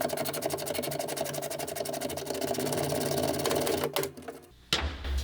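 A power tool running with a rapid, even rattle, stopping about four seconds in; a low rumble follows near the end.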